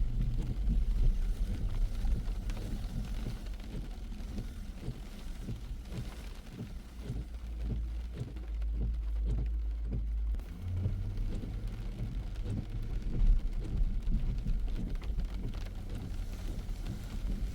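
A car driving in the rain: a steady low road and engine rumble, with rain striking the car in many short ticks.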